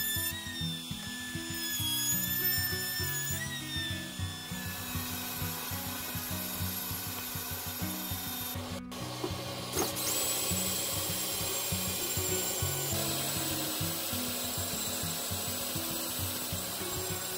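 Sanding disc spun by a power drill rubbing across wood, the motor running steadily, with background music with a steady beat underneath. The sound changes abruptly about nine seconds in.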